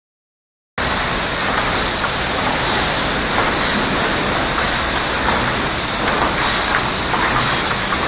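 Sawmill board line running: chain conveyors carrying sawn boards, making a steady mechanical din with a thin high whine and scattered light knocks. It starts abruptly about a second in.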